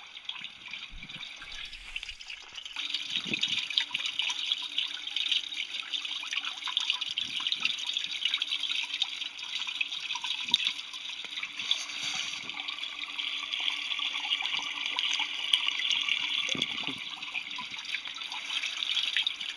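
Vortex water fountain running: water swirling and draining down the central whirlpool with a steady trickling splash full of small drips, a little louder from about three seconds in.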